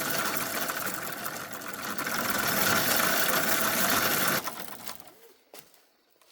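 An engine running loudly and steadily, then dropping away about four and a half seconds in.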